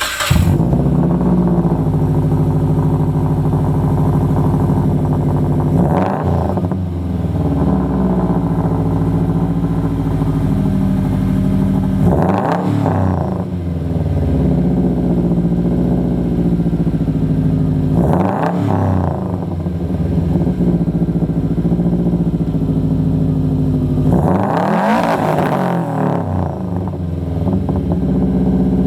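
2012 Subaru WRX's 2.5-litre turbocharged flat-four, breathing through a muffler-delete catback with only a resonator, catching on its first start and settling into a steady idle. It is revved four times, about six seconds apart, each rev rising and dropping back to idle, the last one held a little longer.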